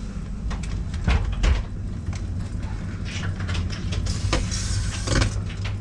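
Steady low hum inside a standing sleeper-train carriage, with a few sharp knocks and rustles as someone moves through the narrow corridor.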